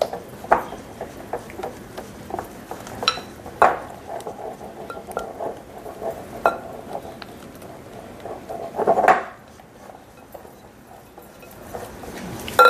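Spatula scraping and tapping against a mixing bowl as a thin flour, egg and milk batter is stirred smooth: irregular knocks and scrapes, with a louder clatter about nine seconds in.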